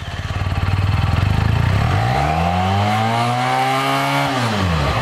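Benelli 302S motorcycle's inline two-cylinder four-stroke water-cooled engine idling, then revved once: the pitch climbs about two seconds in, holds high for over a second, and drops back to idle near the end.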